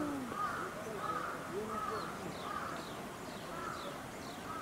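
A crow cawing over and over, with repeated harsh caws roughly one a second.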